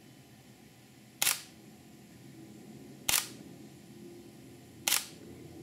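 Sony NEX-6 camera's shutter firing three single shots, about two seconds apart.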